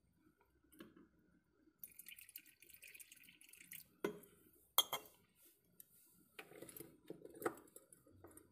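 Distilled water trickling from a glass into a lead-acid inverter battery cell for about two seconds, topping up a low electrolyte level. Then a few sharp clicks and knocks, the loudest about five seconds in.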